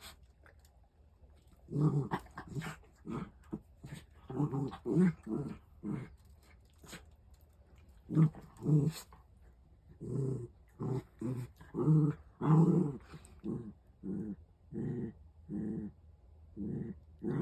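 A dog making a long run of short growls and grumbles, one after another, starting about two seconds in.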